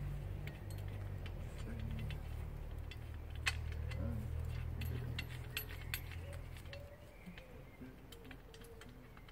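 Scattered sharp clicks and taps of a metal folding shovel multi-tool being handled and worked against a sapling, over a low steady hum that stops about seven seconds in. A pigeon coos in the second half.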